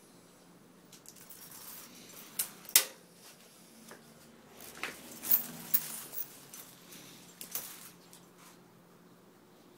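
Scattered sharp clicks and knocks of things being handled: two about two and a half seconds in, a quick cluster around the middle, and a couple more later.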